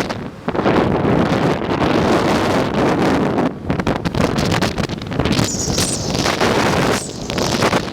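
Strong wind buffeting the microphone in uneven gusts, with a brief high hiss about five and a half seconds in.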